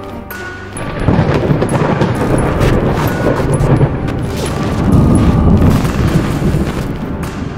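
Loud rumbling thunder sound effect, starting about a second in and swelling twice before fading, with the film's background music underneath.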